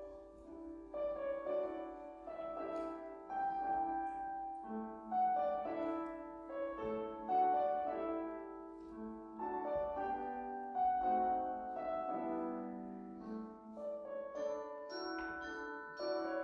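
Symphony orchestra with piano playing a slow, lyrical passage of film music, held notes changing about once a second. Mallet percussion joins near the end with short, bright high notes.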